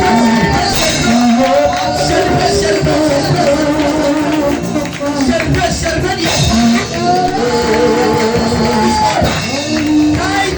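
Worship music with voices singing held, gliding notes over a steady band accompaniment.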